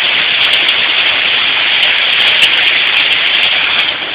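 Heavy rain from a storm falling steadily: a dense, even hiss with faint ticks of drops, easing slightly near the end.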